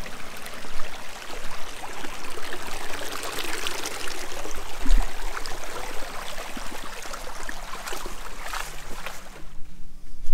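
A small, shallow woodland brook running and trickling over rocks, a steady, even rush of water that cuts off suddenly near the end.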